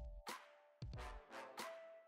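Quiet background music: held synth chords over a light electronic drum beat.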